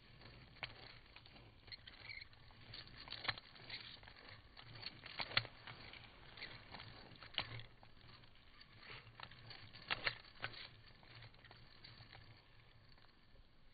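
Faint, irregular clicks and light taps, a dozen or so scattered over several seconds, over a low hum.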